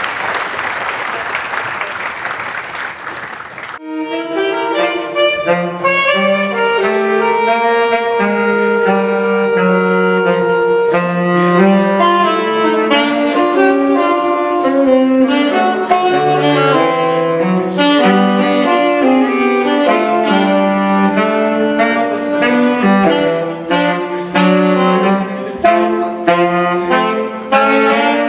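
Audience applause for about the first four seconds, cut off abruptly by a saxophone choir playing a jazz blues in several parts at once.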